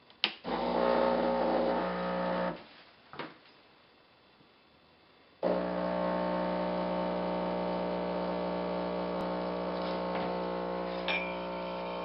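Krups XP5240 espresso machine brewing: a sharp click as the dial is turned, then its pump hums steadily for about two seconds and stops. After a short pause it starts again about five seconds in and runs steadily, pushing water through the coffee, until it cuts off suddenly at the end.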